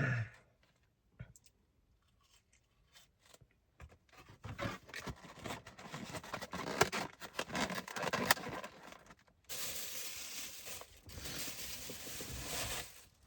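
Rustling and crinkling handling noise, irregular crackles from about four seconds in, turning into a denser, steady rustle for the last few seconds.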